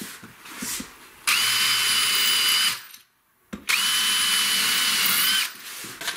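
Electric drill boring pilot holes through cement-bonded particle board laid on plywood. It runs twice, each time for about a second and a half with a short pause between, with a steady high motor whine over the cutting noise.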